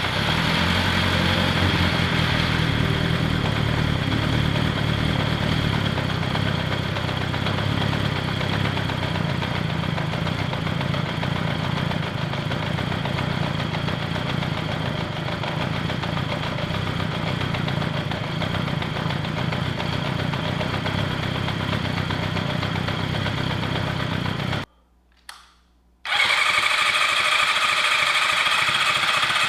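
Kawasaki Zephyr's air-cooled inline-four engine running steadily, freshly rebuilt after an amateur overhaul. It breaks off into near silence for about a second near the end, then carries on.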